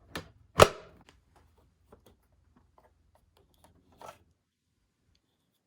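Handling noises from the plastic body of a Fantom Thunder upright vacuum as it is opened to reach the HEPA filter: a sharp snap about half a second in, then faint light clicks and a brief rustle near four seconds in.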